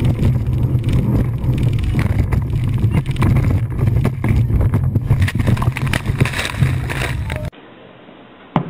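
Open speedboat running at high speed: a loud, steady rush of engine, water and wind noise with knocks as the hull pounds over the water. It cuts off suddenly near the end.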